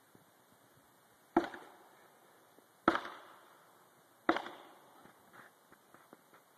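Axe chopping into a tree trunk: three heavy, evenly spaced strokes about a second and a half apart, then a few faint small knocks.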